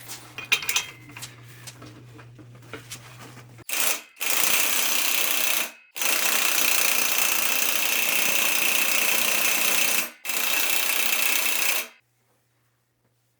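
Pneumatic impact wrench hammering in four bursts, the longest about four seconds, driving a gear puller's screw. It stops abruptly after the last burst, after a few light metal clicks at the start.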